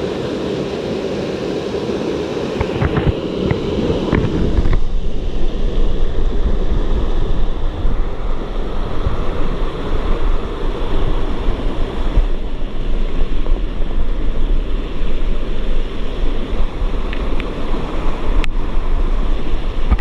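Steady rushing noise with wind buffeting the microphone, the low rumble growing heavier from about five seconds in. A few light knocks come around three to four seconds in and once near the end.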